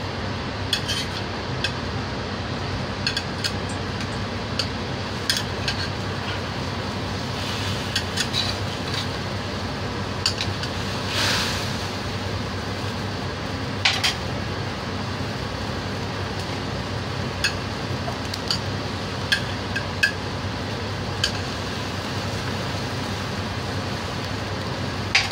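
Metal ladle clinking and scraping against a steel wok as fried, fish-stuffed bitter gourd pieces are set into simmering sauce: scattered sharp clicks, one longer hiss about eleven seconds in, over the steady bubbling hiss of the sauce and a low hum.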